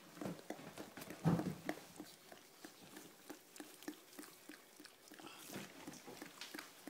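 A mother dog licking and mouthing her newborn puppy: a run of wet licks, smacks and small clicks, with one louder low sound about a second in.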